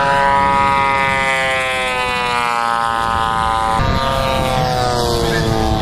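Radio-controlled aerobatic model airplane's engine and propeller droning steadily, the pitch falling slowly. The sound jumps abruptly about four seconds in.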